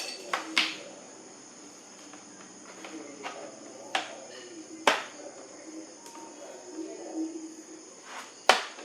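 Sharp plastic clicks and snaps, about six spread irregularly, as a guitar pick pries around the plastic bottom cover of an HP laptop and its clips let go. The loudest snaps come about five seconds in and near the end.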